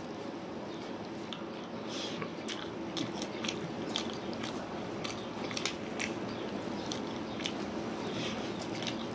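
Close-up mouth sounds of a man eating biryani rice and chicken curry by hand: chewing with many short wet clicks and smacks, along with his fingers squishing and mixing the rice on a metal plate.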